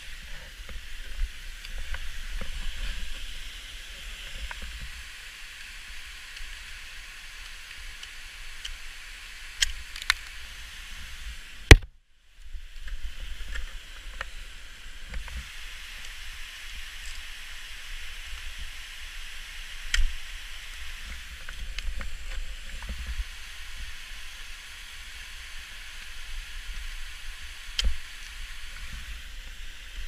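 Ice axe picks striking the ice of a frozen waterfall: a few sharp strikes spaced several seconds apart, the loudest just before the sound briefly cuts out near the middle, over a steady hiss and low rumble.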